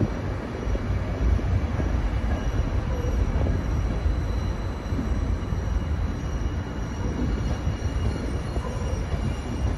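ÖBB passenger coaches, Nightjet sleeping cars among them, rolling past on the rails: a steady low rumble from the wheels and running gear, with a thin, faint, high wheel squeal running along above it.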